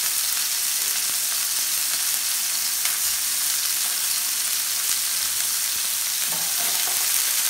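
Raw ground-beef burger patties sizzling steadily in a hot, lightly greased frying pan, a continuous high hiss. This is the searing that gives the patties a crispy crust.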